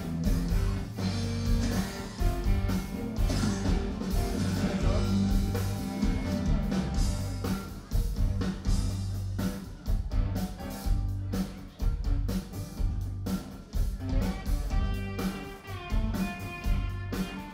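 Live rock band playing an instrumental passage: electric guitars, bass and a drum kit keeping a steady beat.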